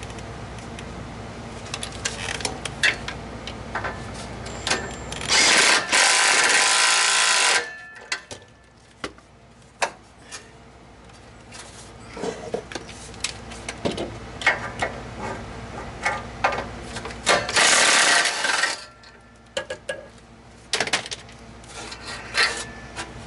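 Scattered metal clinks, knocks and scraping from hands and tools fitting a new exhaust section (catalytic converter and resonator pipe) under a car. Two loud, steady hisses of about two seconds each, one about six seconds in and another about eleven seconds later.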